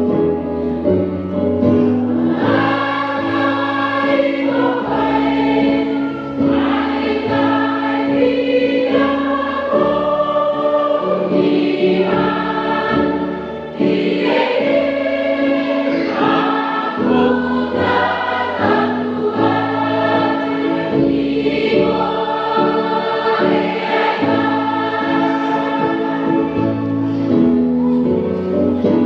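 A church choir singing a hymn in several parts. It holds chords, with phrases changing every second or two.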